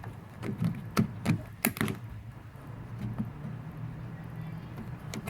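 Small clicks and knocks of parts and tools being handled during washing-machine reassembly: a cluster of sharp clicks in the first two seconds, then sparser taps over a steady low hum.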